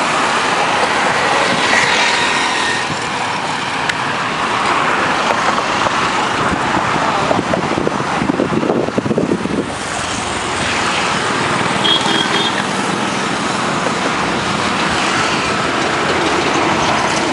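Steady road traffic crossing a bridge. One vehicle passes louder about eight to ten seconds in, and there is a short beep about twelve seconds in.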